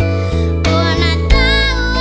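A girl singing a gospel song in Kiribati over instrumental backing with a stepping bass line, her held notes wavering.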